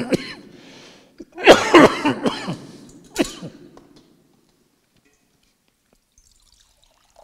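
A man coughing and clearing his throat in a short run of harsh strokes, starting about a second and a half in and lasting about two seconds. His throat is worn from long talking.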